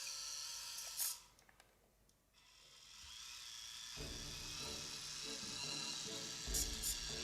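Small electric motor whirring at a high pitch. It fades out about a second in and builds back up, with background music joining about four seconds in.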